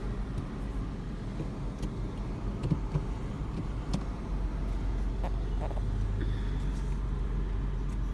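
Car running, heard from inside the cabin: a steady low engine hum that grows a little louder about four to five seconds in as the car starts to pull away, with a few faint ticks and taps.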